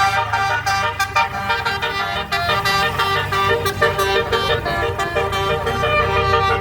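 Telolet horn, a set of multi-tone musical air horns, playing a tune in quick stepped notes over the steady low hum of the vehicle's running engine.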